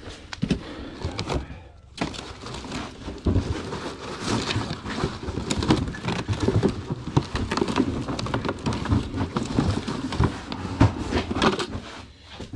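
Continuous rustling, crackling and light clattering of stored belongings being handled and rummaged through, busier from about two seconds in.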